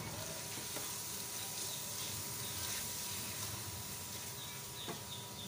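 Chicken mince and spices sizzling steadily in hot oil in an aluminium pressure cooker as it is stirred with a silicone spatula, with a couple of faint clicks.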